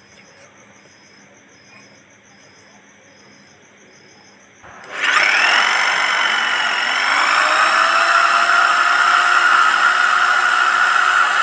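Golden Bullet 750-watt, 13 mm corded impact drill switched on about five seconds in. Its motor whine rises in pitch as it spins up, then runs steadily with the bit turning free, no load.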